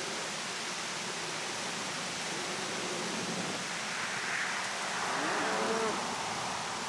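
Steady, even rushing noise, like wind on a microphone, with a faint short pitched sound about five seconds in.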